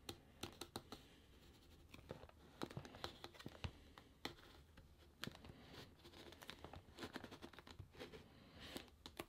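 Hands working the pull tab on a cardboard product box: faint, scattered scratches and small clicks of fingers on the card as the tab is pulled.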